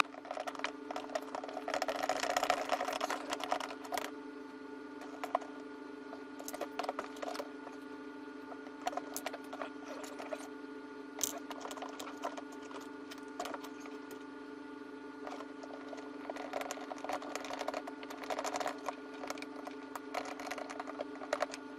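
Hands working plastic ride-on toy car parts and hardware: scattered clicks, taps and short clattering rattles, with a denser flurry about two seconds in and again near the end, over a steady low hum.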